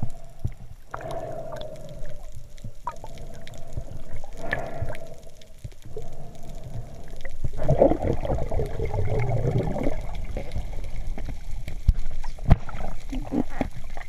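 Water gurgling and sloshing, muffled as heard by a camera in an underwater housing, with a louder stretch of bubbling about eight seconds in and a few sharp clicks near the end.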